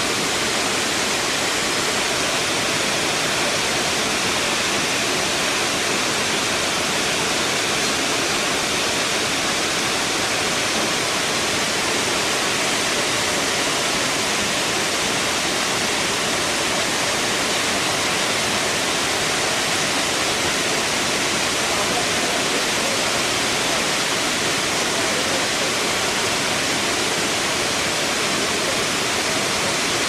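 Kravica waterfall: the steady rush of water pouring over the falls, even and unchanging in level.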